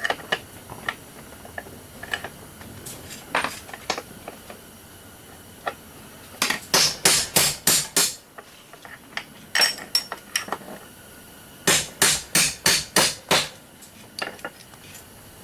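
Hammer striking a steel bar used as a punch, knocking parts out of a stripped-down Hart reciprocating saw. Scattered light taps come first, then two quick runs of six or seven sharp metallic blows, about six and twelve seconds in.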